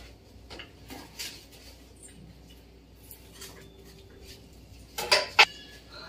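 Light handling noises of a parcel's packaging: scattered soft clicks and rustles, with a few louder sharp knocks about five seconds in.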